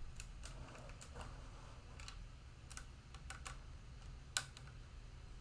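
Irregular light clicks and taps from small objects being handled, with one sharper click about four and a half seconds in.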